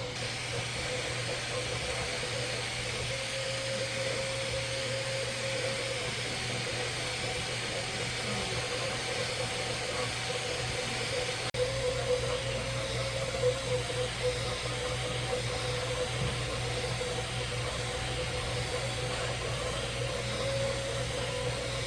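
Bambu Lab 3D printer running as it prints a cube's infill: a steady fan hiss and hum, with the stepper motors whining in a tone that wavers as the print head moves back and forth. There is a momentary dropout about halfway through.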